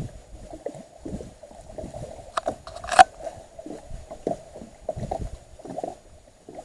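Small waves lapping against a boat's hull in irregular soft pulses, with a couple of sharp knocks on the boat; the loudest comes about three seconds in.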